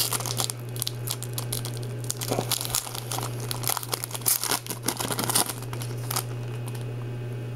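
Foil trading-card pack being torn open and crinkled, a dense crackle of wrapper noise that stops about six seconds in. A steady low hum runs underneath.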